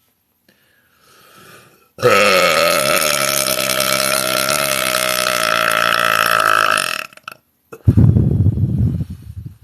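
A woman's loud, long belch with a steady pitch, lasting about five seconds. After a short pause comes a second, shorter belch that is deeper and rougher.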